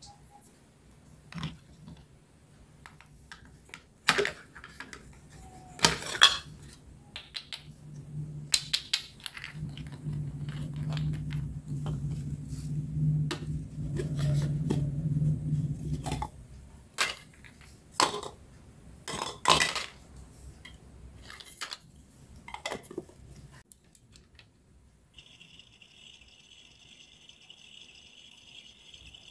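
Plastic toy kitchen pieces and toy cut fruit being handled, set down and fitted into a toy blender: a string of separate clicks and clacks. A steady low hum runs for several seconds in the middle, and a steady high tone starts near the end.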